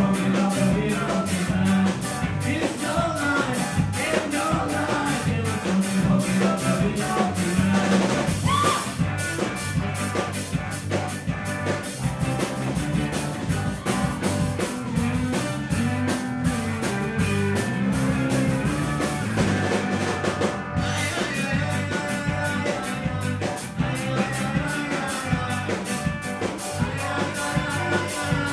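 Live ska band playing an upbeat song, with saxophone, electric guitars and bass over a drum kit's steady, even beat, and a singer's voice in places.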